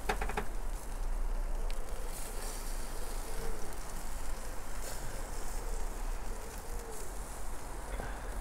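Wind buffeting the microphone outdoors, a steady low rumble, with a few faint clicks from metal tongs turning chicken on a charcoal grill grate.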